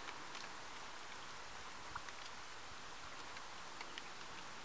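Heavy rain dripping from the forest canopy onto a creek's surface: a steady hiss with scattered sharp plinks of single drops, one louder plink about two seconds in.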